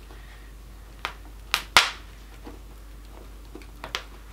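An open log fire crackling: a scatter of sharp pops and snaps, the loudest just under two seconds in, over a steady low hum.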